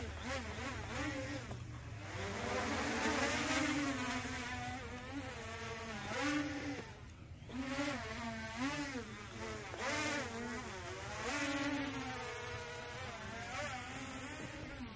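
Racing-size quadcopter, an MJX Bugs 2C rebuilt on a ZMR250 carbon frame, buzzing overhead as its motors and propellers whine. The pitch swings up and down again and again as the throttle changes, dipping briefly about halfway through.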